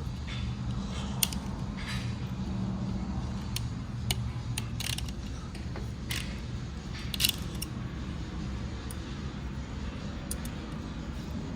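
Scattered sharp metal clicks and clinks as a snap ring is worked out of the C clutch pack in a Ford 10R140 transmission drum and the steel parts are handled, over a steady low background hum.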